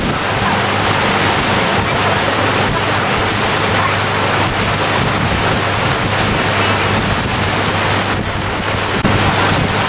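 Wind buffeting the microphone over open water: a loud steady rushing, with a low steady hum beneath it.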